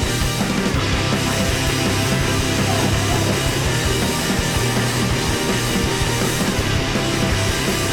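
Loud rock music with distorted guitars and a driving beat, punk or metal in style.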